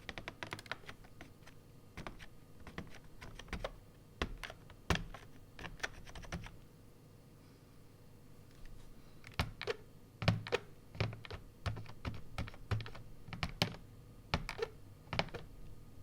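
Typing on an AppleDesign Keyboard with Alps slider-over-dome switches and PBT dye-sub keycaps: a fast run of keystrokes, a pause of about two seconds near the middle, then more keystrokes, several with a deeper thud.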